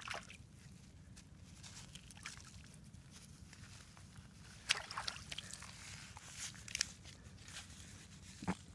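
A hand splashing in shallow lake water at the shore, faint, with a few brief splashes.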